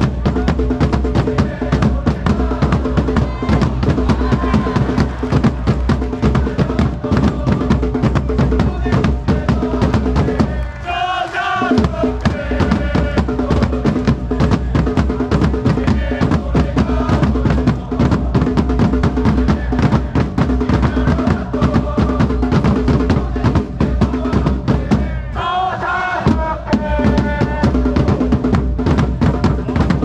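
Football supporters' drum line beating snare-type cheer drums and a large bass drum in a fast, steady rhythm under a stand full of fans singing a chant in unison. The drums drop out briefly about ten seconds in and again about twenty-five seconds in, leaving the singing.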